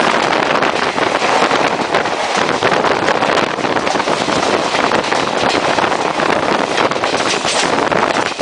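Indian Railways passenger express train running at top speed, heard from on board: a loud, steady rush of wind buffeting the microphone over the noise of wheels on rails.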